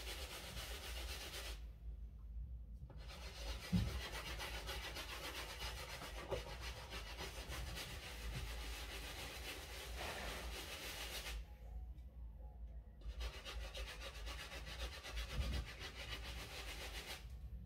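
Soft-bristle shoe brush scrubbing a wet, soapy Yeezy Boost 350 'Zebra' sneaker: a steady scratchy rubbing of bristles on the shoe. It stops briefly twice, about two seconds and about eleven seconds in.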